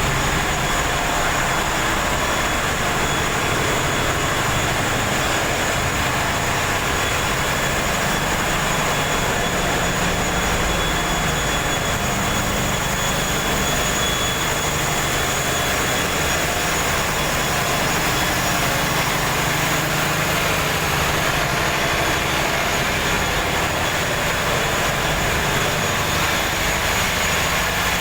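Ship's engine-room machinery running: a steady, loud drone with faint high whines over it, unchanging throughout.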